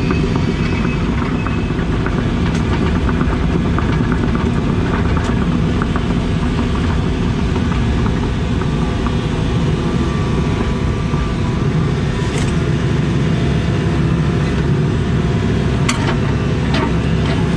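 Case CX80 excavator's diesel engine running steadily while the machine works, with a few short sharp clicks and knocks scattered through.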